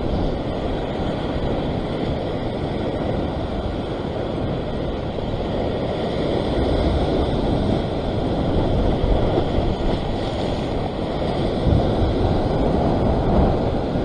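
Ocean surf surging and breaking over a rock ledge, a steady rushing wash with rising and falling swells, mixed with wind buffeting the microphone.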